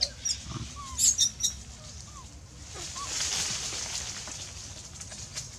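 Short, high-pitched animal squeaks and chirps in quick succession during the first second and a half, with a few brief falling calls. Around the middle comes a rustle of leaves.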